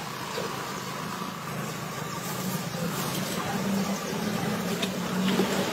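Steady low engine hum of a motor vehicle, growing a little louder in the second half.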